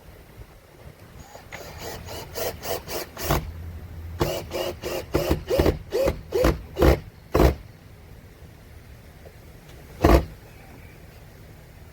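Power drill driving a screw into wood in a string of short trigger bursts, the motor pitch dipping under load in each, then one last short burst a few seconds later.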